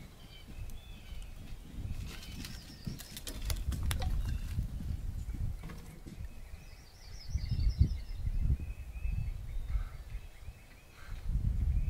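Outdoor field ambience: an uneven low rumble that rises and falls in gusts, with songbirds chirping faintly. A few sharp clicks come about two to four seconds in, and a short high bird trill about seven seconds in.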